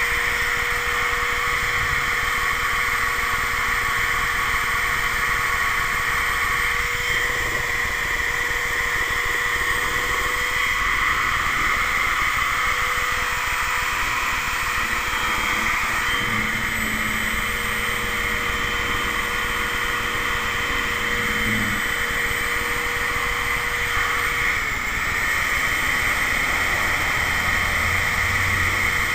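Corded electric drill running steadily, turning a mixing paddle through thick two-part joint sealant in a metal pail.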